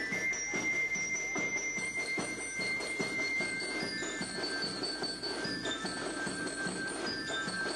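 Marching band playing: a glockenspiel melody of high ringing notes over a steady drum beat and a dense band sound.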